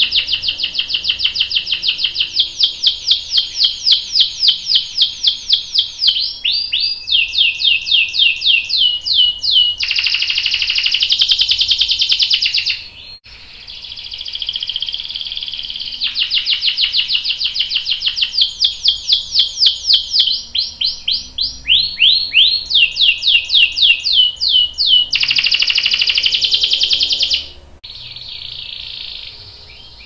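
Domestic canary singing two long song phrases of fast, repeated high chirping notes that change type as they go, each ending in a dense rolling trill. The song breaks off briefly about halfway and stops a couple of seconds before the end.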